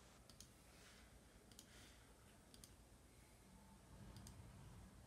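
Faint computer mouse clicks: four short paired clicks, a second or so apart, as text is selected, copied and pasted. Otherwise near-silent room tone.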